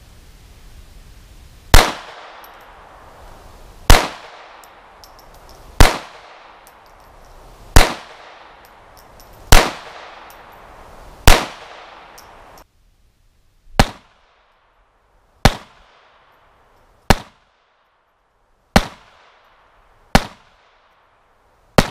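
Smith & Wesson M&P 22 pistol firing .22 LR in slow, steady single shots, about one every two seconds, a dozen in all. About halfway through, the background hiss cuts out abruptly and the later shots are a little quieter.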